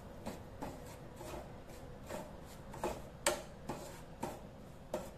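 Wooden spatula stirring and scraping rice flour in ghee around a nonstick pan: soft, irregular scrapes and taps, about two a second, as the flour is roasted.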